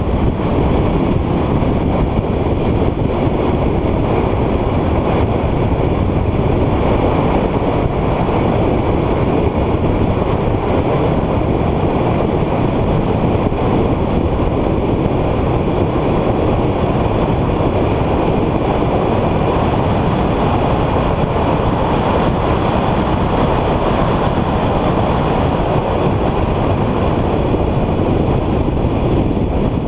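Car driving at speed on a race track: a steady, loud rush of wind and road noise, with a faint wavering high whine above it through the first half.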